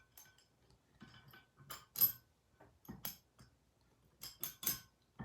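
Light metallic clinks and knocks of steel bench-vise parts being handled and fitted together during reassembly, irregular, the loudest about two seconds in and three quick ones near the end.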